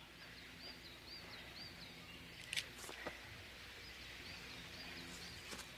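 Faint outdoor ambience: a steady hiss under a small, high chirp that repeats two or three times a second. A soft tap comes about two and a half seconds in.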